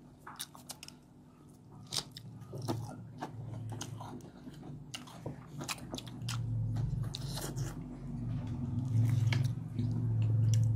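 Crunchy bites into deep-fried breaded chicken, with chewing and lip smacks in many short sharp clicks. A low hum comes in about six seconds in and grows louder toward the end.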